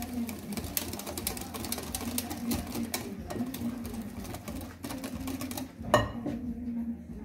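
Batter being whisked in a mixing bowl: a whisk clicking and scraping rapidly and unevenly against the bowl as flour is mixed into egg and milk. There is one sharp knock on the bowl about six seconds in.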